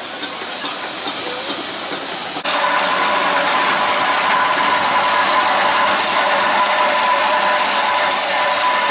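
Steam traction engine running on the road: a steady hiss of steam that jumps suddenly louder about two and a half seconds in, with a steady high tone held over it from then on.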